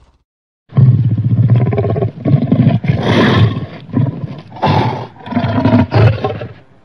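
Monster roar sound effect made from edited lion and tiger roars. After a brief silence, loud growling roars come in a series of bursts that break off and start again several times.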